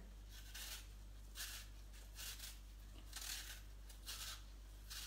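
Apple being peeled by hand, a blade scraping the skin off in short, faint strokes about once a second, five or six in all, over a steady low hum.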